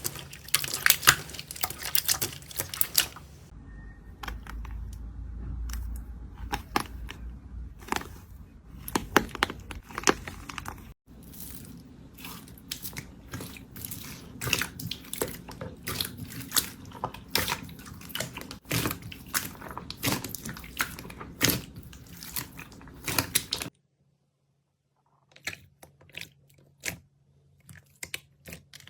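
Slime being pressed, squeezed and stretched by hand, giving rapid, irregular sticky clicks, pops and crackles. It comes in several separate clips, with a brief silence and quieter clicking near the end.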